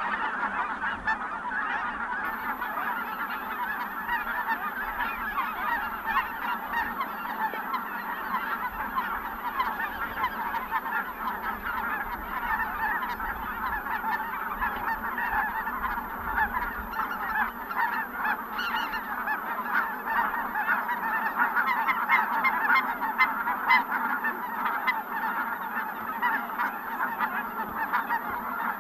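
A large flock of Ross's geese calling continuously: a dense, unbroken chorus of many overlapping honks.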